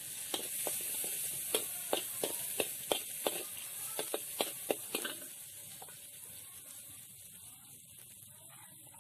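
Sliced garlic, shallots and chili sizzling in hot oil in a wok, while a metal spatula clinks and scrapes against the wok about twice a second. The stirring stops about five seconds in, and the sizzling carries on, quieter.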